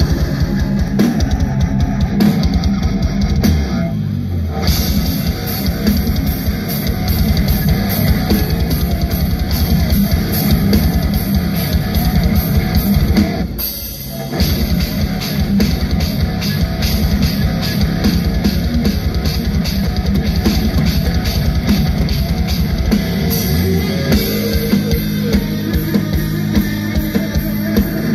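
Heavy metal band playing live: distorted electric guitars, bass guitar and fast drumming, with a brief drop about halfway through before the full band comes back in.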